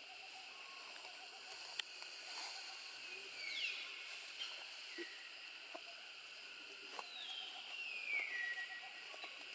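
Two faint high animal calls, each gliding downward in pitch, the second longer, over a steady high outdoor hum with a few soft clicks.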